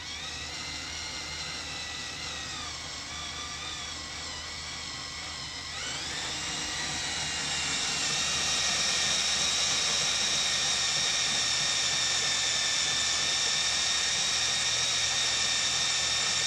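Cordless drill with a half-inch bit boring through a steel trailer flange. The motor's whine wavers at first, rises in pitch about six seconds in, then runs steady and louder.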